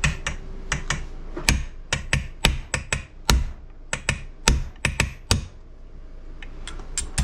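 Hammer tapping a pin punch to drift a pin out of the action of a Harrington & Richardson Topper Model 48 shotgun, freeing the broken part for replacement. About eighteen sharp taps at an uneven two to three a second, stopping about five and a half seconds in, then two lighter clicks near the end.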